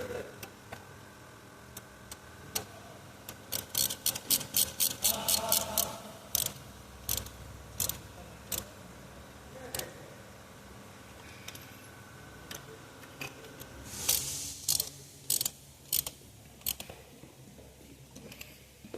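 Socket ratchet clicking as new spark plugs are tightened, in a quick run of about five clicks a second, then scattered single clicks and a second short cluster near the end, with light metal taps.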